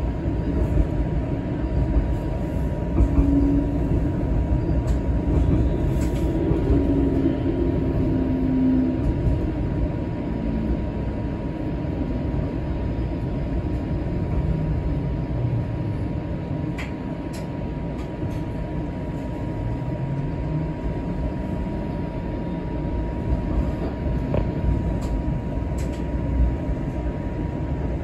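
Ride noise inside a moving TTC streetcar: a steady low rumble of the wheels on the rails, with a motor whine that drifts down in pitch, then falls and rises again as the car slows and picks up speed, and a few light clicks.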